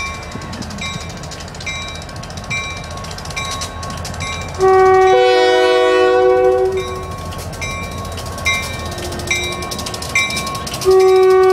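A diesel freight locomotive's air horn blows a chord: one long blast about five seconds in, and another starting near the end. Underneath, a level-crossing warning bell dings about once a second, over the low rumble of the locomotive.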